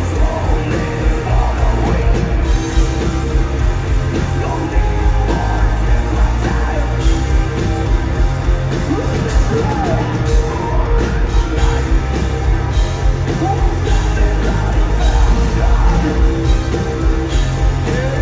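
Live melodic death metal band playing loud: distorted electric guitars, heavy bass and drums, with the singer's sung and shouted vocals over the top.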